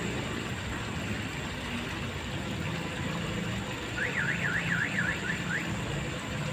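Steady rush of flowing ditch water with a low hum underneath. About four seconds in comes a brief, high, rapidly rising-and-falling warble.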